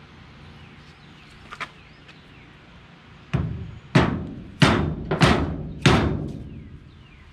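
Rubber mallet tapping a small cap into the mounting bushing of a new rack and pinion steering gear: five blows about half a second apart, starting about three seconds in.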